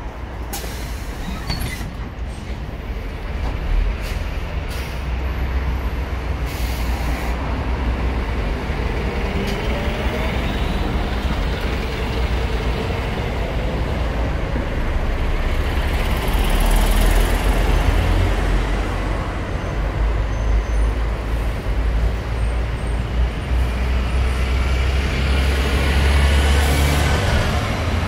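City buses at a stop: a Hyundai Blue City hybrid low-floor bus, then another bus, running with a heavy low rumble and pulling away with rising whines. Several short, sharp air-brake hisses come in the first few seconds.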